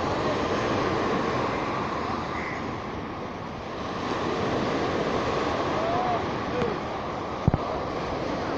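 Tidal river water washing along the bank, a steady rushing noise mixed with wind on the microphone. A single sharp knock about seven and a half seconds in.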